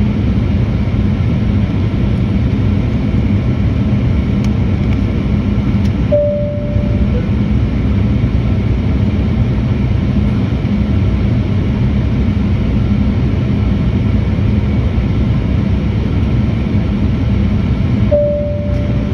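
Airliner cabin noise: a steady rushing of engines and airflow with a low hum underneath. A short two-note cabin chime sounds about six seconds in and again near the end. The second chime comes just before a cabin announcement.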